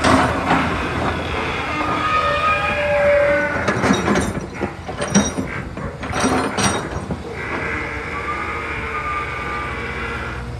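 Long-reach excavator's diesel engine running under load, with a hydraulic whine that shifts in pitch as the boom and bucket move. A cluster of sharp knocks and clanks comes in the middle.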